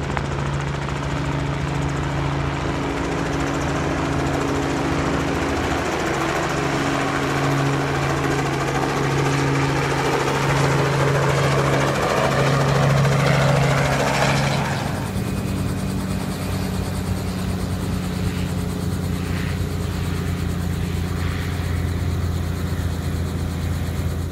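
Light-aircraft piston engine and propeller running steadily. A rush of air noise builds and then cuts off sharply about 15 seconds in, after which the engine's drone sits lower in pitch.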